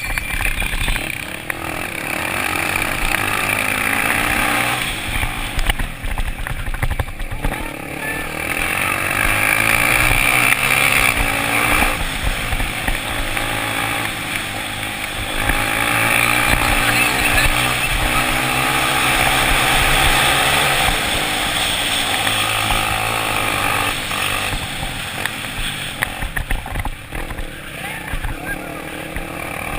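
Dirt-bike engines racing on a dirt track, revving up and down over and over as the riders accelerate, shift and brake through the corners.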